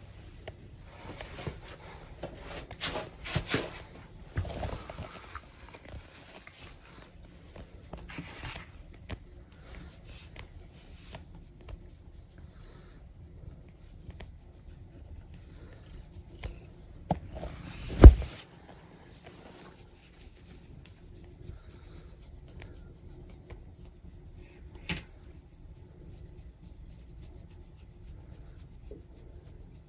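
Soft rustling and rubbing as a kitten brushes against slippers and a stroking hand, with one sharp, loud knock a little past halfway.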